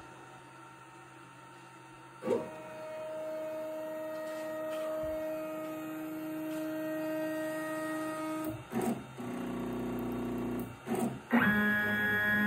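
Stepper motors of an X-Carve CNC router with the CNC4Newbie upgrade running a homing cycle. A steady machine whine starts about two seconds in; a couple of clicks and a change to a different tone follow past the middle. More clicks come near the end, and then a new steady whine as another axis starts moving.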